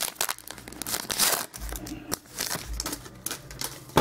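A trading-card pack wrapper being torn open and crinkled by hand: a run of irregular crackles and rustles, ending in a sharp tap.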